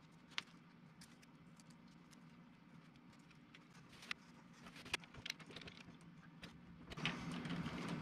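Faint clicks and small knocks of hands handling wires and tools during electrical wiring work, over a low steady hum. The rustling and handling get louder near the end.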